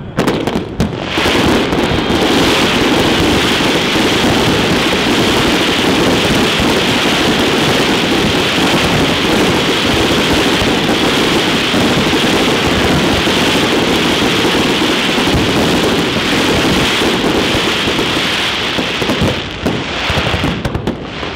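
Dense barrage of fireworks, many bursts and crackling stars going off over one another in a continuous rain-like crackle that starts abruptly and thins out near the end.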